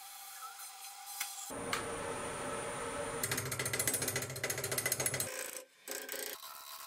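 Wood lathe turning a rough, out-of-round blank as a gouge starts roughing it. The tool hits the uneven surface in a rapid hammering chatter for about two seconds, then stops and the sound drops away.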